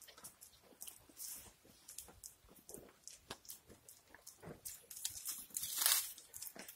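Goats browsing on leafy branches: a busy run of leaf rustling and small crunching bites, with one louder rustle of the branches about six seconds in.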